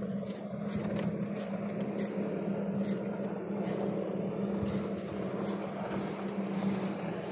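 Wind and water noise aboard a small fiberglass sailboat under way in choppy water: an even rush with short irregular splashes or crackles, over a steady low hum.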